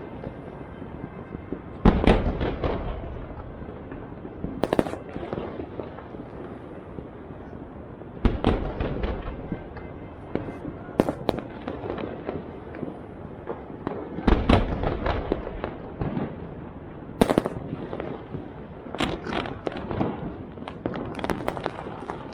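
Aerial fireworks bursting: sharp bangs every few seconds, each followed by trailing crackle.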